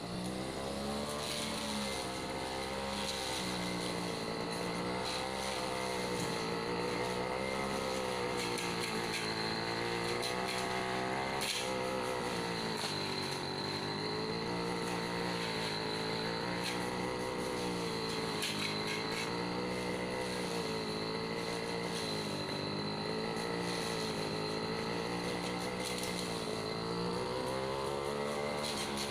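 Petrol brush cutter running throughout as it cuts a hedge, its engine speed rising and falling every few seconds as the throttle is worked and the cutter meets the foliage.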